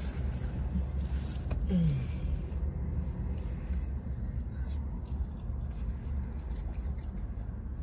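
Steady low hum of a car cabin, with a short falling 'mm'-like voice sound about two seconds in.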